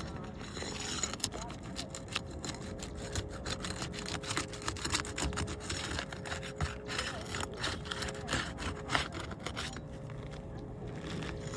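Roof shingle tab being worked loose from the shingle beneath it: many quick scrapes and clicks that thin out near the end.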